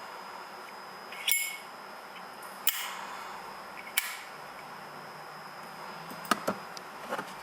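Zippo-style lighter being flicked open and snapped shut: a series of sharp metallic clicks, half a dozen in all, the first with a brief metallic ring.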